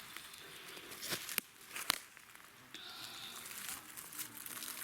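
Rustling and crackling of dry leaf litter and small twigs on the forest floor as a mushroom picker moves and handles it, with a few sharp snaps about a second and two seconds in.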